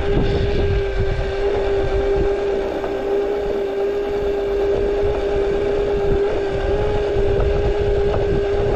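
Razor E150 electric scooter's brushed motor and chain drive running at a steady cruising speed of about 8 mph, a constant whine of one pitch, over wind and road rumble.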